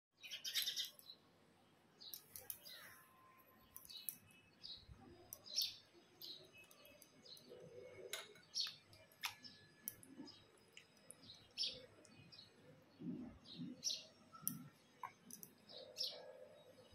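Small birds chirping in short, scattered high calls. A couple of light clicks of a metal spoon against a drinking glass come about halfway through.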